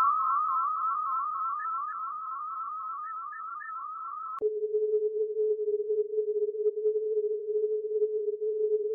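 Synthesized sci-fi electronic sound effects: a fast warbling tone with a few short chirps, which cuts off abruptly about halfway through and is replaced by a steady, lower, slightly fluttering hum.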